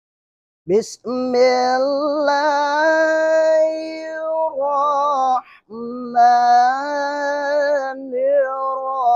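A man chanting a Quranic recitation in the melodic tilawah style: two long phrases of drawn-out, ornamented held notes with a short breath between them about halfway through, starting a little under a second in.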